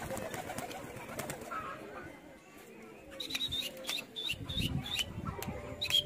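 Domestic pigeon flying and landing, with the clatter of its wing flaps. From about three seconds in, a small bird chirps repeatedly: short high chirps, about three a second.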